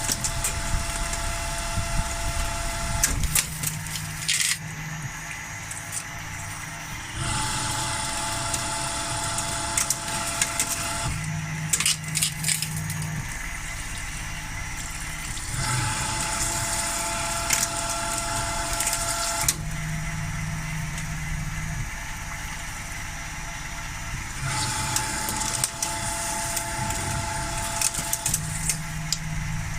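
CNC milling machine running a repeating program: a few seconds of steady whine alternate with a few seconds of lower hum, the cycle coming round about every eight to nine seconds, with bursts of sharp clicks at several of the changes.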